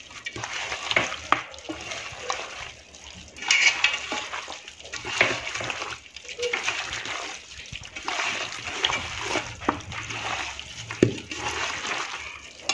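A bare hand squeezing and mixing oily, herb-laden marinated chicken pieces in a pot: irregular wet squelches and sloshes, coming in uneven bursts.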